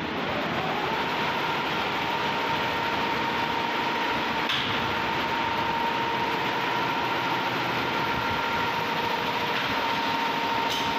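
A 16-head high-speed computerized embroidery machine running, its heads stitching together in a dense, fast rattle. A whine rises over the first second as the machine comes up to speed, then holds steady.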